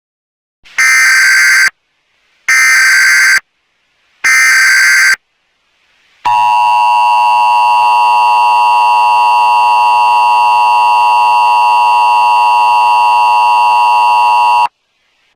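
Emergency Alert System alert opening: three short, loud screeching data bursts (the SAME header), about a second each with brief gaps, then the steady two-tone attention signal held for about eight seconds before it cuts off. The tones mark the start of an emergency alert message.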